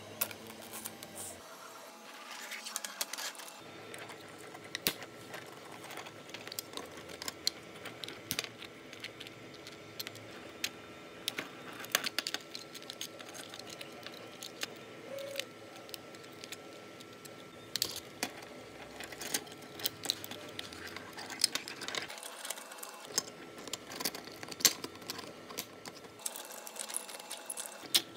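Irregular hard plastic clicks, snaps and clatter of a 3D-printed foldable Peterbilt 379 toy truck as its parts are handled and folded together, over a faint steady hum.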